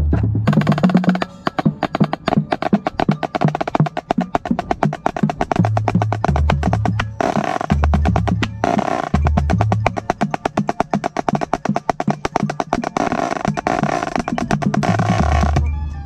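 Marching snare drum, heard close up from the player's own drum, played with wooden sticks in fast strokes and rolls. Lower pitched notes step along underneath. The snare stops just before the end.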